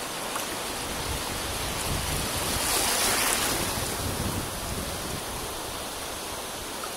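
Shallow seawater washing and lapping, a steady rushing wash that swells to a louder swish about three seconds in.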